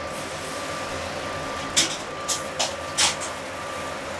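Steady rushing noise of a commercial kitchen's gas range and exhaust hood, with a faint steady tone. Four sharp clinks of cookware come in quick succession a little before the middle.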